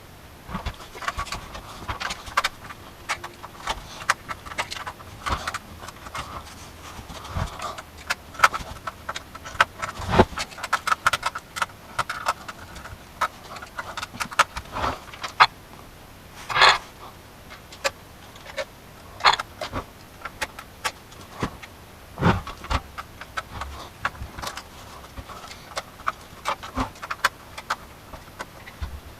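Irregular clicks, taps and small metallic jangles of computer hardware being handled, with one louder rattle about halfway through.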